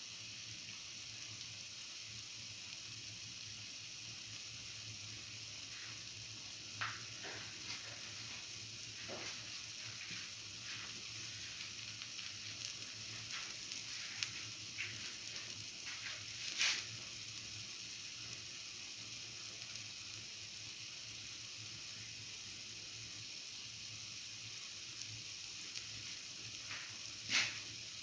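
Okra and chickpea-flour batter frying in a little oil in the cups of a cavity pan: a steady sizzle, with scattered pops and crackles from about six to seventeen seconds in and a couple of sharp pops near the end.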